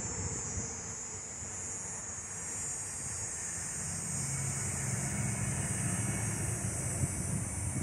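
Jet aircraft engines running: a steady high whine over a broad rumble, with a low drone coming in about halfway through.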